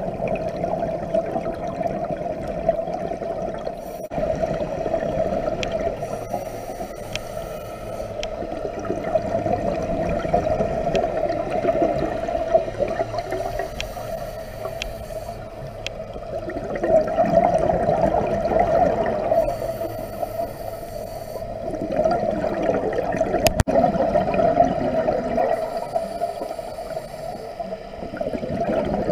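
Scuba diver breathing through a regulator underwater: a hissing inhalation about every six seconds alternating with a louder gurgling rush of exhaled bubbles.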